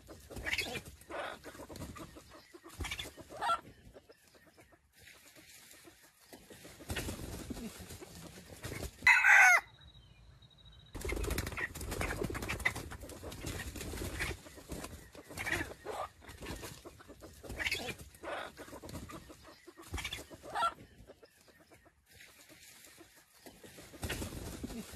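Red junglefowl rooster clucking repeatedly, with one short, loud, stammering crow about nine seconds in that cuts off suddenly.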